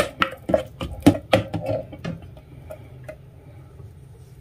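A plastic rice paddle stirring chopped onions in oil in a rice cooker's pot, knocking and scraping against the pot for about the first two seconds, then quieter with a few light ticks as the stirring stops.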